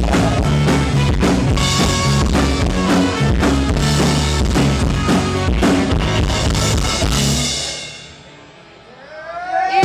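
Rock band playing live on drum kit, electric guitar, bass guitar, acoustic guitar and saxophone. Near the end the band drops away to a quiet break for about a second. A rising slide in pitch then leads the full band back in.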